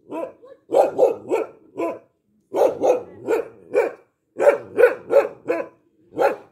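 A dog barking in quick runs of about four barks, roughly three a second, with short pauses between the runs.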